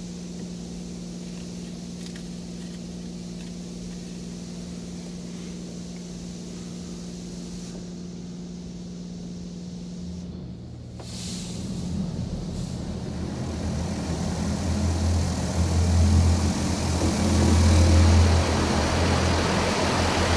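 A Mark VII ChoiceWash XT touchless car wash heard from inside the car. A steady machine hum runs for about the first half. Then a rushing noise with a deep drone starts up and builds to much louder as the machine moves into its next stage.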